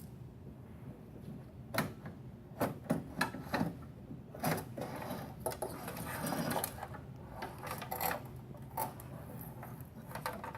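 Irregular clicks and knocks, with a stretch of scraping about halfway through, as a computer power supply is worked loose and slid out through the back of a desktop case.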